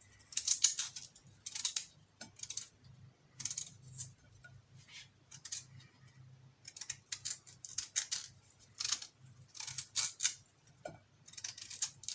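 A white turnip being peeled by hand with a blade: short, irregular scraping strokes against the skin, roughly one a second.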